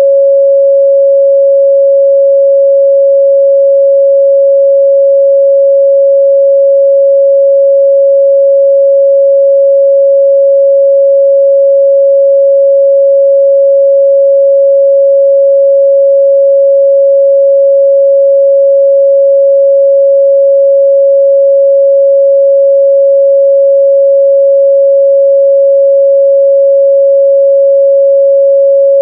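A steady, loud pure sine-wave test tone at 553 Hz, one unchanging pitch with no overtones.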